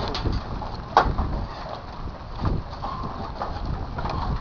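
Outdoor noise with wind rumbling on the microphone and a single sharp click about a second in.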